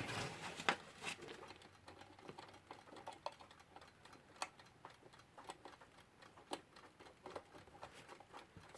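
Faint, irregular small clicks and taps from handling a Westclox Lark alarm clock, a sharper click roughly once a second among fainter ones.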